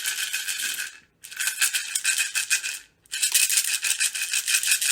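A container of pet treats or dry food being shaken hard in three bursts of rattling with brief pauses between, the usual sound for calling a pet to come.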